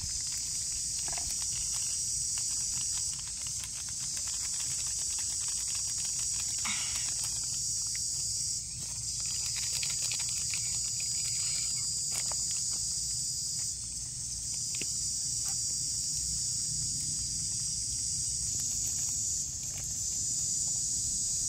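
Loud, steady high-pitched buzzing of an insect chorus, easing briefly about every five seconds before swelling again, over a low steady rumble.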